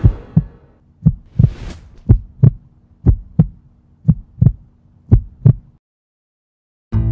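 Heartbeat sound effect: a lub-dub double beat about once a second over a low steady hum, with a whoosh about a second and a half in. The beats stop a little before six seconds, and after a second of silence acoustic guitar music comes in at the very end.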